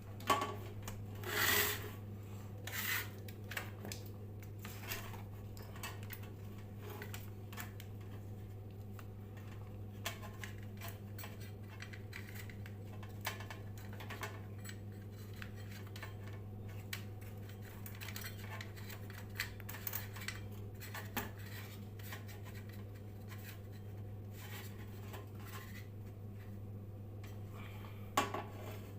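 Steady low electrical hum, with scattered clicks, rubs and scraping of small hard parts being handled; the loudest handling noises come near the start and again near the end.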